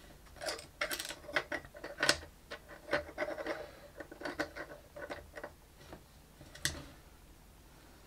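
Small 3D-printed PLA plastic parts clicking, tapping and rubbing as they are handled and the freshly glued pivot joint is worked to check it still moves. There is a sharper click about two seconds in and another near seven seconds.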